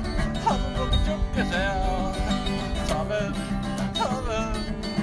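Acoustic guitar music in a country style: steady picked chords with a melody of sliding notes over them.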